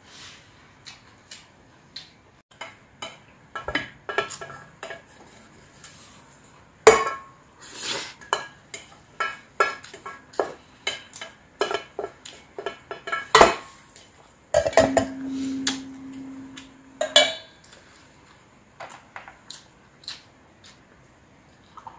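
A spoon scraping and knocking against a large stainless steel mixing bowl, giving many short clinks and scrapes with a few louder knocks, as the last of the bibimbap is gathered up.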